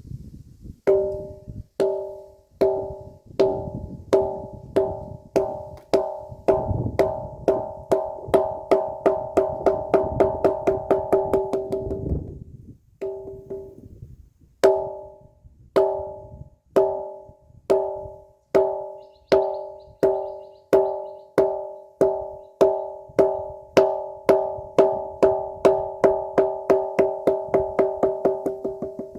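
A ringing rock struck over and over, each strike ringing with a clear bell-like tone. The strikes quicken from about one a second to several a second, stop for about two seconds near the middle, then start again slowly and quicken once more.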